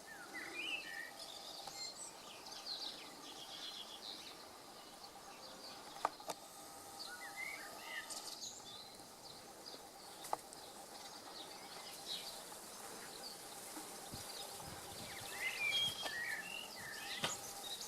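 Small birds chirping and singing over the faint steady hum of a honey bee swarm, with two sharp clicks about six and ten seconds in.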